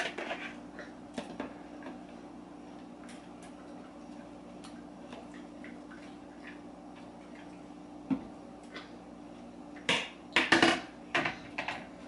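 Light household clicks over a steady low hum. Near the end comes a cluster of sharp knocks and rustles as a plastic bowl is set down on the counter and a small hand reaches into a pot of chopped kale.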